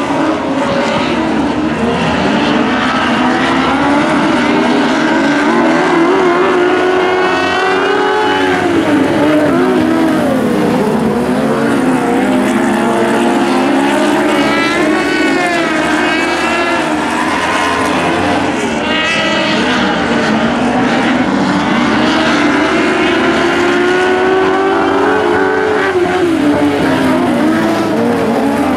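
A pack of compact speedcars racing on a dirt oval, several engines running hard at once, their pitch rising and falling as the cars rev up along the straights and ease off into the turns.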